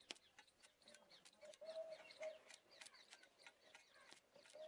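Very faint, irregular crackling clicks of a welding rod sparking against thin steel sheets through a Coca-Cola electrolyte, only sparking and not welding. A bird coos faintly, about one and a half seconds in and again near the end.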